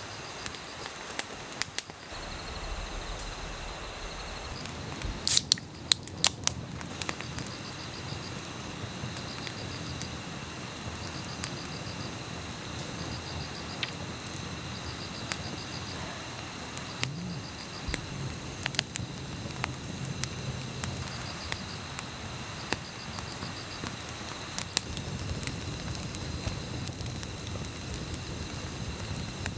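An insect chirping in short pulsed trills about every two seconds over a steady background hiss, with a few sharp clicks about five to seven seconds in.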